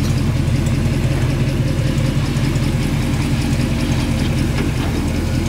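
1980 Chevrolet El Camino's swapped-in dual-carburetor engine running steadily at low revs, a deep, even sound.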